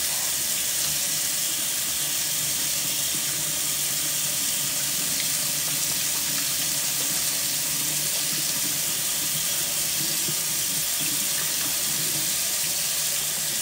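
Water running steadily from a kitchen tap into the sink as hands are washed under it.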